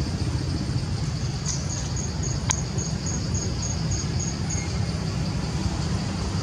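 Outdoor background: a steady low rumble, with a thin high chirping repeated about four times a second for some three seconds and a single sharp click near the middle.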